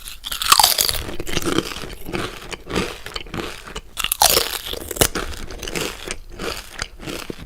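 Loud, close chewing of crunchy food: irregular crunching and mouth clicks, with two louder bites about half a second and about four seconds in.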